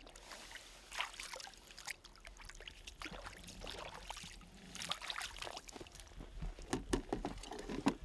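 Irregular splashing and trickling of water, in uneven bursts with no steady rhythm.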